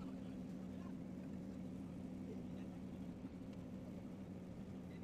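Steady low electrical hum over faint background hiss.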